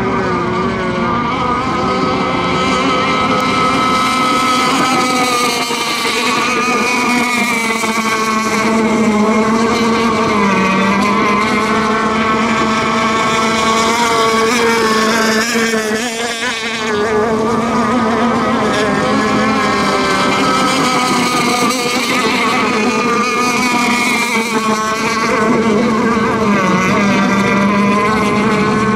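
Several radio-controlled racing boats running at full speed together, their high-pitched motors overlapping and wavering in pitch, with a brief dip in level about halfway through.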